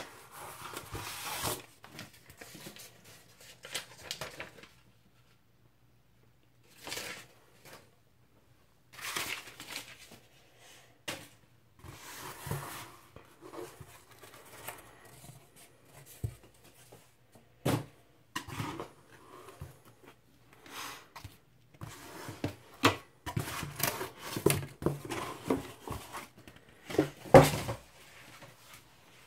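Cardboard record mailer being opened and handled: flaps bending and sliding, crumpled packing paper rustling, and the vinyl LP pulled out. It comes as irregular rustles, scrapes and light knocks, with a short near-silent pause, and a couple of sharper knocks near the end.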